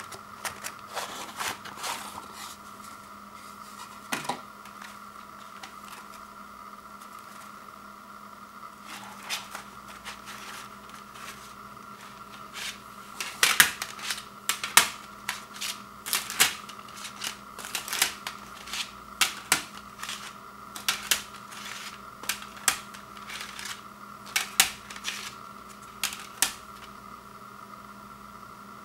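Clear plastic slim CD cases clicking and clacking against one another as they are handled and pulled apart: a few scattered clicks at first, then a dense run of sharp clicks through the second half.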